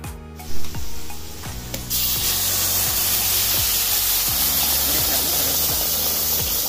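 Hot onion-tomato butter tadka in an aluminium kadai sizzling loudly as cooked chana dal is poured into it from a clay pot. The hiss starts suddenly about two seconds in and then holds steady. A brief loud bump comes about half a second in.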